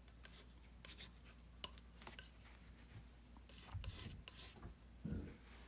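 Faint, intermittent scraping and ticking of a palette knife mixing oil paint on a palette, a little louder about four seconds in.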